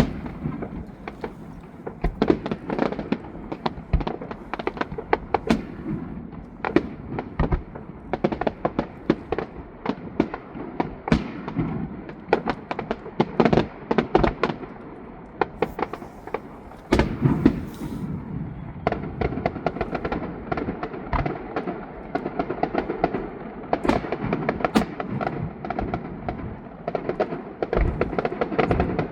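Fireworks display: a dense, irregular run of bangs and crackles, many overlapping and none pausing for long.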